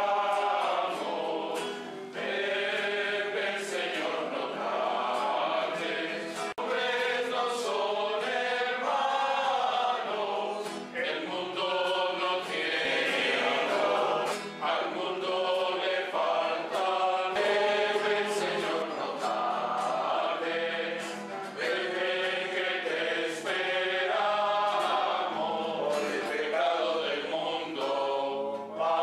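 A choir singing a religious song, with voices sustained and moving in phrases at a steady level.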